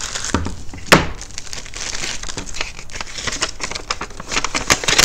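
Thin plastic wrapping crinkling and a paper sheet rustling as a packaged fishing rod rack is unpacked by hand, with one sharp knock about a second in.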